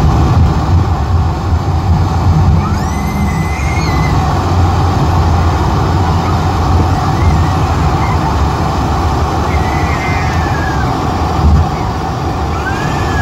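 Boeing 747-400ER cabin noise on the landing rollout: a loud, steady low rumble of engines, wheels and airflow as the jet slows down the runway. A few faint tones rise and fall now and then over the rumble.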